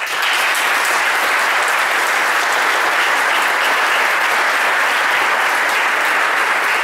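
Audience applauding, a loud, steady patter of many hands clapping.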